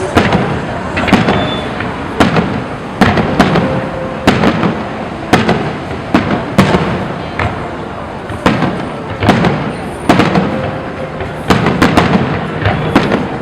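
Fireworks salute: aerial shells bursting one after another, a sharp bang about every second with rumbling echo between.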